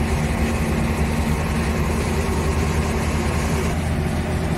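A heavy engine idling steadily, an even low hum with no change in speed.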